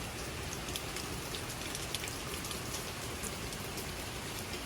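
Steady hard rain from an approaching hurricane, a constant hiss with scattered sharp ticks of individual drops close by.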